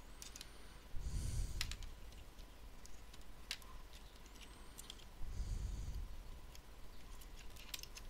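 Light plastic clicks and taps as fingers press a thin speaker wire into its routing channels inside a ThinkPad T61's open chassis, with two short breathy rushes of noise, about a second in and about five seconds in.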